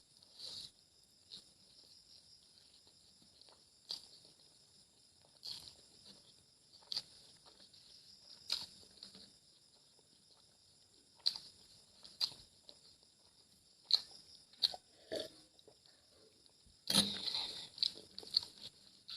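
Close-up eating sounds of a person chewing and biting a meal of egg and potato curry with rice: short sharp mouth and chewing noises spaced a second or two apart, coming thicker together near the end.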